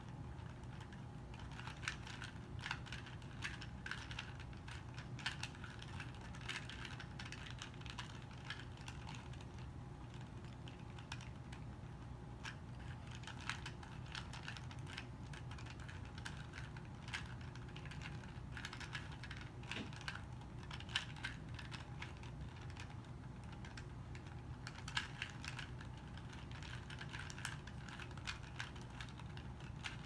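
A plastic 2x2 Rubik's cube being turned by hand, its layers clicking in quick, irregular runs. A steady low hum runs underneath.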